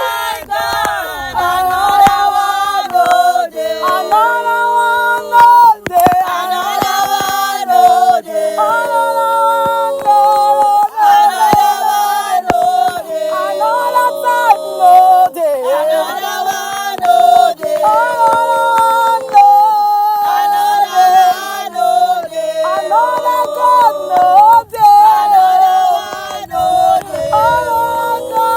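A group of voices singing a worship song together, with long held notes that slide from one pitch to the next.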